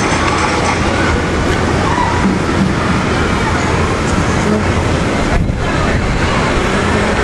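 Knoebels' Twister wooden roller coaster in motion, its train running along the track in a loud, steady rumble and rush of noise.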